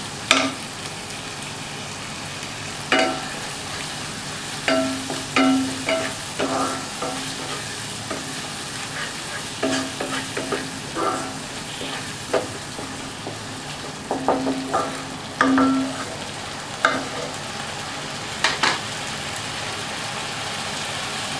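Masala of onion, ginger-garlic paste and freshly added tomato purée sizzling in a non-stick kadai while a wooden spatula stirs it, with irregular scrapes and knocks of the spatula against the pan. The stirring stops near the end, leaving only the steady sizzle.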